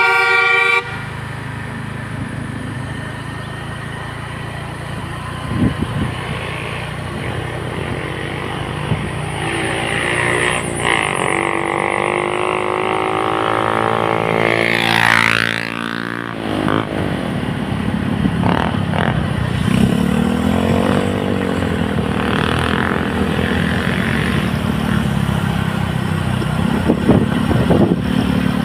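A bus's multi-tone basuri horn finishes its tune in the first second. After that, road vehicle engines run steadily. A louder engine rises and falls in pitch as it passes around the middle, and another passes shortly after.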